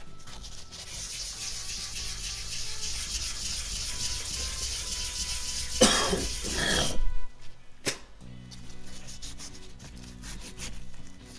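A grey abrasive scuff pad scrubbing the crown of a forged aluminum Harley-Davidson Twin Cam piston by hand to clean it, a fast steady rubbing hiss that stops about seven seconds in. A short loud vocal sound comes about six seconds in, and background music with steady tones runs underneath.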